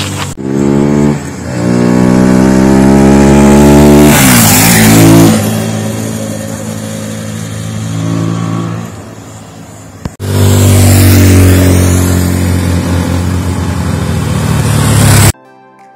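Bajaj Pulsar NS200 single-cylinder motorcycle with a K&N air filter, ridden past at speed: the engine revs up with a brief dip for a gear change, passes loudly and fades away. It cuts back in loud a second time. Near the end it cuts off abruptly to soft music.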